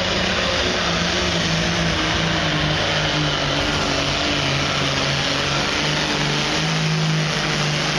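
Diesel pulling tractor's engine running flat out under heavy load as it drags a weight-transfer sled down the track. A loud, steady engine note wavers slightly in pitch.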